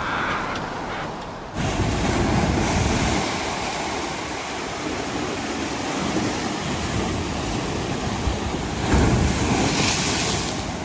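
Mediterranean sea waves breaking and washing ashore, a continuous rush that swells twice, once after a second or two and again about nine seconds in.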